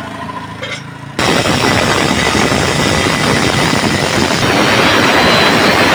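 Angle grinder with a cutting disc, first running free with a steady motor whine. About a second in it bites into a metal sheet, and a loud, steady cutting noise of disc on metal follows.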